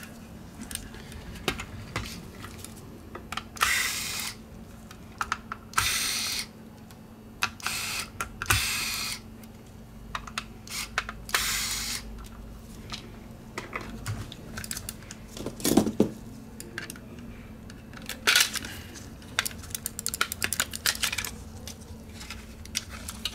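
Hard plastic clicks, taps and short scraping sounds as a Logitech G304 wireless mouse is handled and its shell is pried open with a thin opening tool, with a dense run of clicks near the end.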